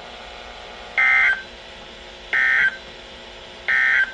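NOAA Weather Radio EAS end-of-message (EOM) code: three short, identical bursts of buzzy digital data tones about a second and a half apart, marking the close of the Required Weekly Test. Steady radio hiss runs underneath.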